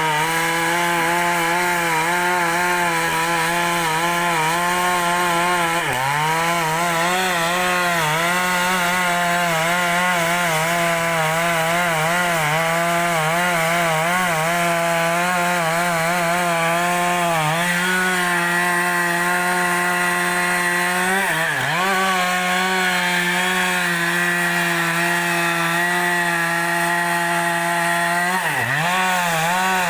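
Two-stroke chainsaw running at high revs while ripping a large log lengthwise. The engine note wavers constantly under the cut and sags briefly four times as the load bites.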